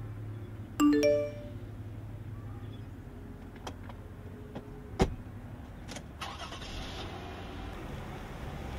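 A short electronic chime of three rising notes about a second in, then a single sharp knock about five seconds in, over a steady low hum and background noise in a car.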